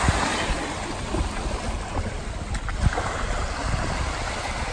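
Small waves washing onto a sandy shore, with wind on the microphone.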